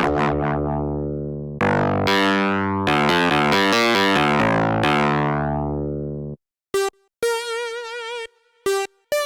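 MOK Miniraze wave-slicing synthesizer plugin playing a patch: sustained, rich chords that change a few times and stop about six seconds in, followed after a brief gap by short single notes with vibrato.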